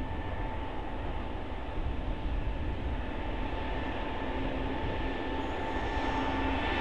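Diesel locomotive NSWDR 4501 approaching downgrade while holding the train back, a steady low rumble with a steady high whine over it, slowly growing louder as it draws near.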